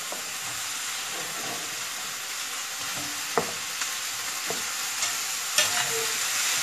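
Chopped vegetables sizzling as they sauté in a skillet, a steady hiss broken by a few sharp clinks of a utensil stirring them. The sizzle gets a little louder near the end.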